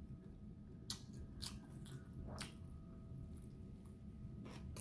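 A person chewing a mouthful of napa cabbage kimchi and rice, with a few faint crunches.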